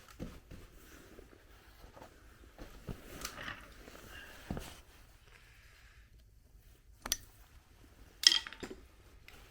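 Scattered metal clinks and knocks of hand tools working on a differential's steel parts, with a sharp knock about seven seconds in and one loud ringing metal strike a second later.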